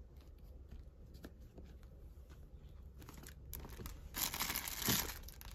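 Faint small handling ticks, then about four seconds in a loud crinkling rustle of paper and plastic packaging as craft supplies are rummaged through, with a soft thump in the middle of it.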